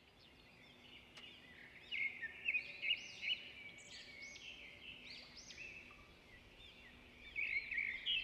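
Birds chirping: a string of short, quick, high calls, loudest about two seconds in and again near the end, over a faint steady hum.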